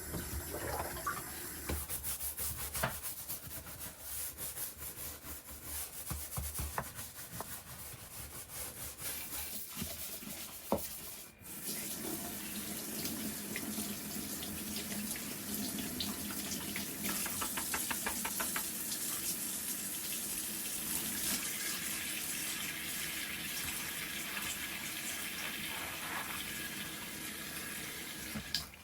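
Water running from a tap into a sink, with light clicks and knocks through the first ten seconds; after a brief break about eleven seconds in, the water runs on more steadily.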